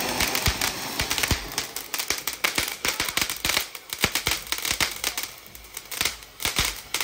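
Ground firework fountains crackling: a hiss of sparks with many sharp, irregular pops and cracks, which come more scattered after about two seconds.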